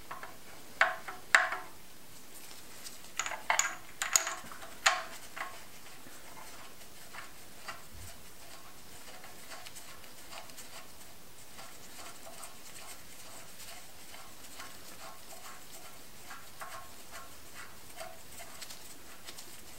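Steel parts clinking as a cam sprocket is handled and fitted onto the camshaft of a Saab T7 cylinder head: a handful of sharp metal clinks in the first few seconds, then a long run of faint light ticks.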